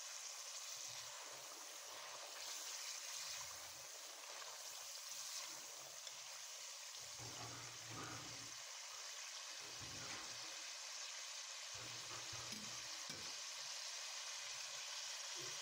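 Faint, steady hiss of taro curry gravy simmering in a wok, with soft low bumps now and then.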